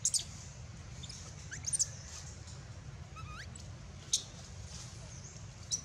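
Macaque monkeys' short, high-pitched squeaks scattered through, with a rising call a little after three seconds in and a sharp click just after four seconds, over a steady low background rumble.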